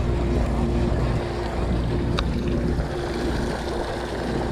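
Sportfishing boat's engine running with a steady low hum, under wind and water noise, with a single sharp click about two seconds in.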